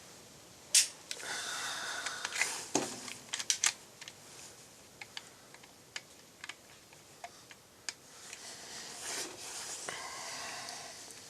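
Clicks and rattles of a Glock pistol with a .22 LR conversion kit being handled while malfunctions are cleared, with rustling in between. A single sharp crack about a second in is the loudest sound, and more sharp spikes come at the very end.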